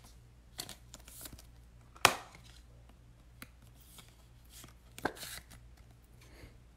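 A trading card being slid into a clear rigid plastic card holder and handled. There are a few short plastic clicks and taps, the sharpest about 2 seconds in and another small cluster about 5 seconds in.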